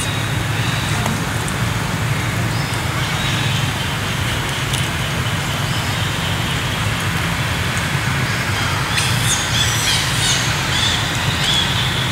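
Steady outdoor background noise with a low rumble, and a few high birds' chirps about nine to eleven seconds in.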